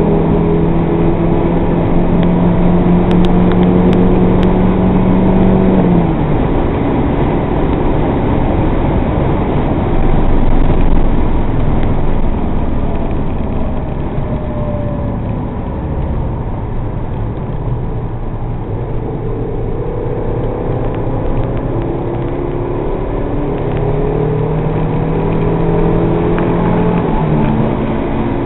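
MG TF engine heard from inside the cabin, pulling hard at high revs, then cutting away about six seconds in. What follows is mostly wind and tyre rumble until the engine comes back on load near the two-thirds mark, its pitch rising before it drops again near the end at a gear change.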